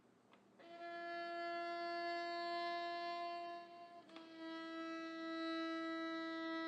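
Mournful background music: a bowed string instrument holds one long sustained note, then moves to a second, slightly lower held note about four seconds in.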